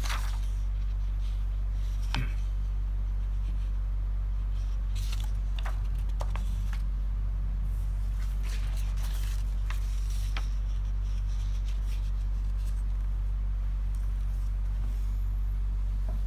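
Steady low electrical hum, with faint scattered rustles and taps of paper sheets being turned and handled on a desk.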